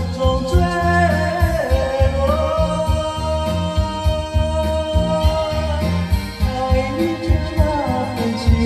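Ballad music with a steady low beat under a melody line that holds one long note through the middle, then moves on near the end.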